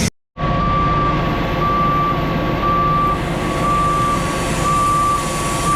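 A truck's reversing alarm beeping steadily at about one beep a second, with the truck's diesel engine running underneath.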